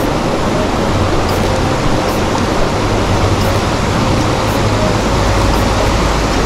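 Steady, loud rushing of a mountain stream, a small waterfall pouring into a pool, an even hiss of water with a low rumble underneath.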